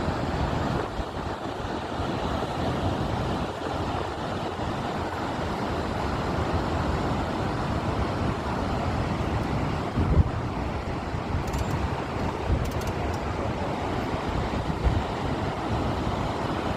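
Steady rushing noise of a squally storm wind, with gusts thumping on the microphone about ten seconds in and again near the end.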